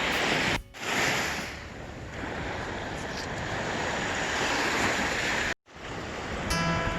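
Lake Erie waves washing onto the shore, with wind on the microphone. The sound cuts out briefly twice.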